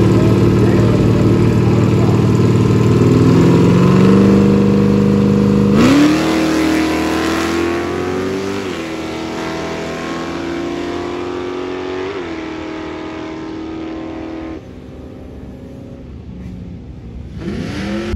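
Dodge Challenger's Hemi V8 at a drag strip start line, its revs held up and raised a little before launch. About six seconds in it launches with a sharp rise in pitch and pulls up through the gears, shifting about nine and twelve seconds in, then fades quickly as it runs away down the track.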